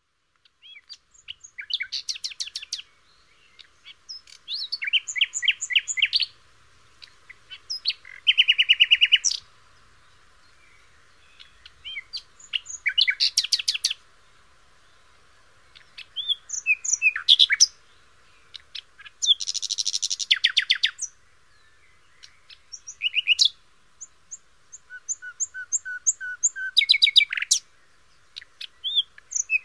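A songbird singing in varied phrases about one to two seconds long, made of clear whistles, trills and rapidly repeated notes, with a short pause after each phrase.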